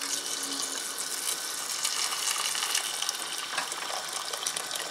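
Boiling water pouring in a steady stream from an electric kettle into a stainless-steel pot of sea buckthorn berries and mint, starting suddenly as the pour begins.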